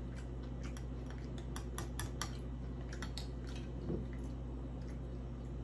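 Close-miked eating sounds: a quick run of light clicks and taps, like a spoon on a bowl and chewing, from about one and a half to three seconds in, then a soft thump, over a steady low hum.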